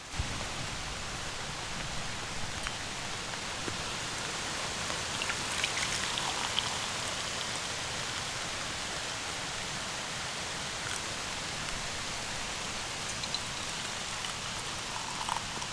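Steady rain falling, an even hiss with a few scattered drop taps.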